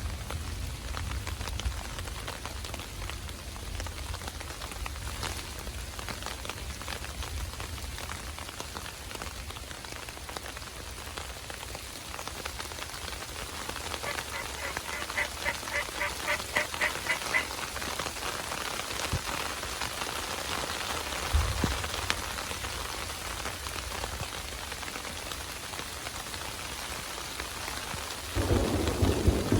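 Steady rain falling, with a run of about a dozen wild turkey yelps about halfway through. A low rumble of thunder rolls in near the end and is the loudest sound.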